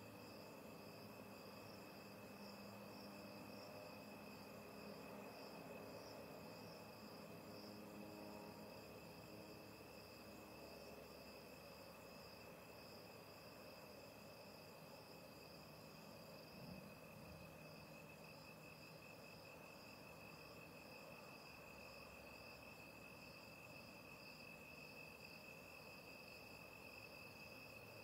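Faint chirring of night insects, two steady high trills overlapping, one of them pulsing. A single brief faint knock a little past halfway.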